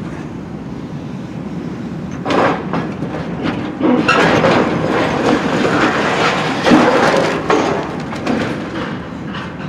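Hydraulic excavator running while its bucket tears into a building's metal-clad wall: a first crash about two seconds in, then several seconds of loud crunching, scraping and clattering of metal and debris over the engine's steady rumble, easing off near the end.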